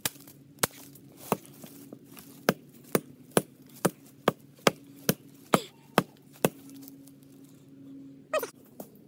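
Chopping blows from a hand-held blade biting into a small living tree trunk: about a dozen sharp wooden chops, settling into roughly two a second, that stop about six and a half seconds in. A brief sound falling in pitch follows near the end.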